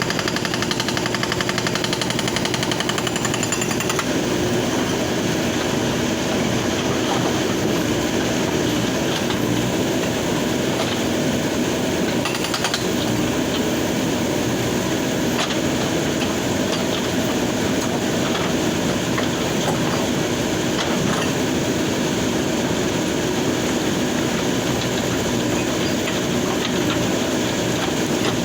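Hydraulic breaker on a backhoe loader hammering rapidly and continuously on river stone, with the loader's engine running underneath.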